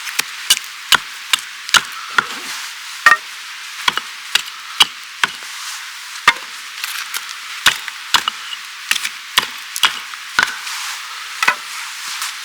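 Wood being chopped or split with a blade: sharp, irregular strikes, a few a second, some in quick pairs, over a steady hiss.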